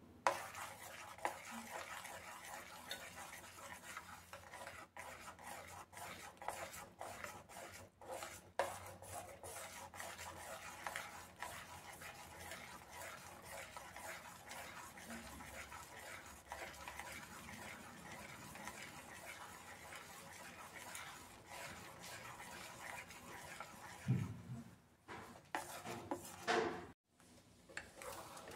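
A metal spoon stirring thick, wet mashed squash in a stainless steel pot, scraping through the mixture and clicking against the pot, with a few louder knocks near the end.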